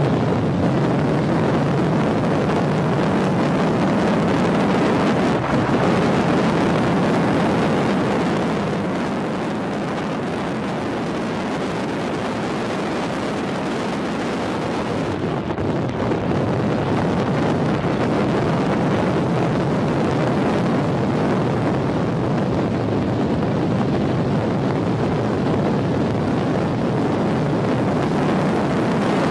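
Continuous motor-vehicle noise with heavy wind noise on the microphone, a little quieter for several seconds in the middle.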